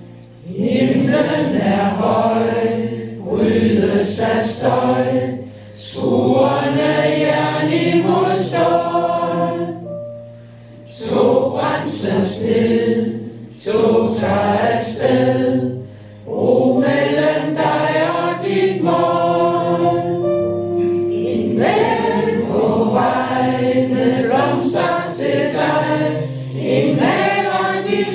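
A roomful of men and women singing a Danish song together, in phrases of a few seconds with brief breaks between them.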